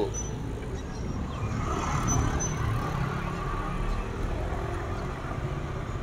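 Steady low rumble of a road vehicle running close by, swelling slightly in the middle, with a few faint high chirps.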